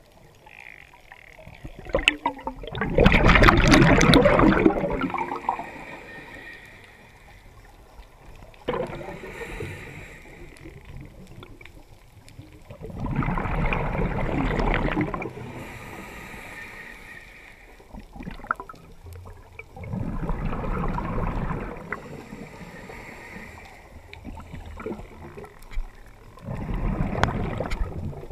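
Water sloshing and bubbling around the camera, in four surges a few seconds long with quieter hiss between.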